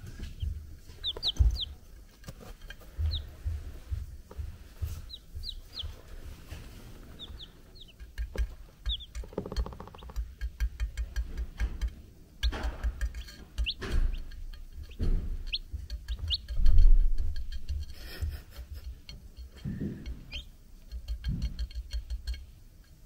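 Young chicks peeping in short, high, thin chirps scattered throughout, over bursts of rapid soft tapping as a chick pecks at apple slices on a plate. A louder low thump comes about two-thirds of the way through.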